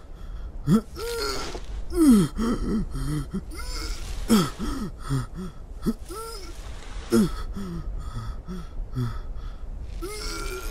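A cartoon sheep's grumbling vocal sounds: a run of short groans, grunts and breathy gasps, their pitch sliding up and down, roughly one every second, over a steady low rumble.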